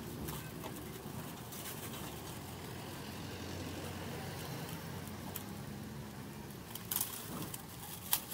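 Deep-frying oil bubbling and sizzling in a large steel wok, with metal tongs clinking against the wok a few times, the sharpest clinks near the end. A steady hum of road traffic runs underneath.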